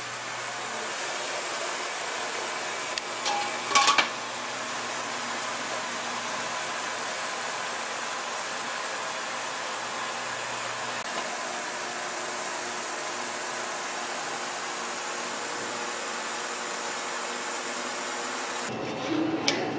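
Steady rushing hiss of a steamer pot on the boil, steaming a rice cake, with a brief clatter of the pot about four seconds in. The hiss cuts off shortly before the end.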